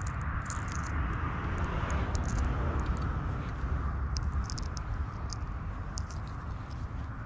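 Steady low rumble and hiss of wind buffeting the microphone outdoors, with faint short high ticks scattered through it.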